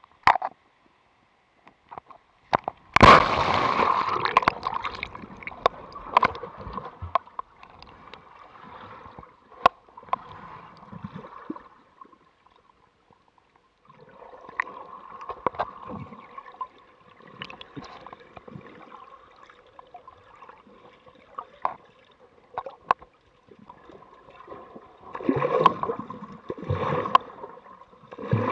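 Water splashing as an action camera plunges into the sea about three seconds in, then muffled underwater sloshing and gurgling heard through the camera housing, with scattered knocks and clicks. There is a brief quiet spell partway through, and the sloshing grows louder again near the end.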